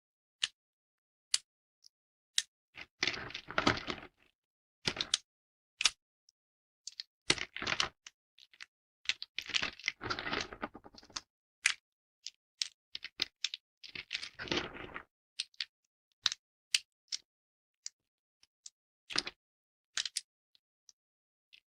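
Thin dry soap plates being snapped and broken by hand: scattered sharp cracks, with several short spells of dense crunching crackle.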